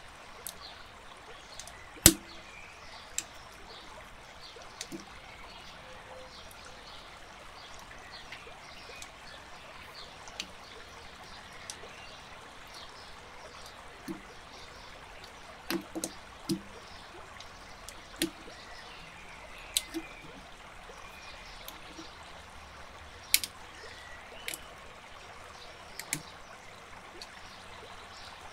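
Plastic building bricks clicking and snapping together now and then, a dozen or so sharp clicks, the loudest about two seconds in, over a steady hiss.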